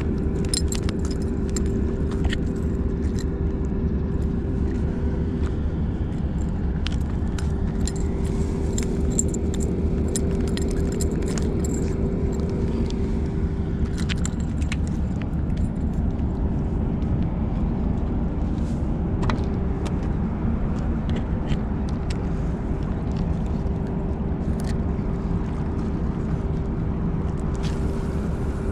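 Steady low rumble with a constant hum, over which light metallic clicks and jingles come thickly in the first half and now and then after: fishing tackle being handled.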